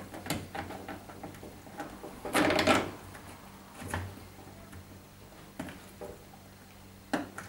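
A flat-blade screwdriver and the wire spring band scraping and clicking against a washing machine's rubber door seal as the spring is worked into its groove. The loudest scrape comes about two and a half seconds in and a sharp click near the end, over a faint steady low hum.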